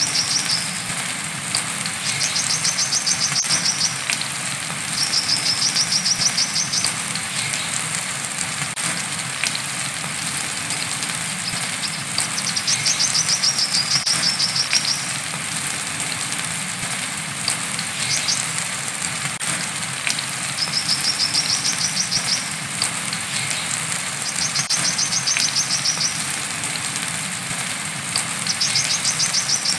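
Brown-throated sunbird (kolibri kelapa) giving its high, rapid 'wiceh' trill over and over, each trill lasting about one to two seconds with short pauses between, over the steady hiss of rain.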